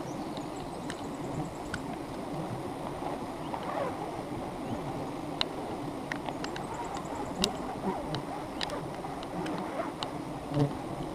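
Dense, steady buzzing of a swarm of wild honeybees around their exposed comb, with sharp clicks and taps scattered throughout.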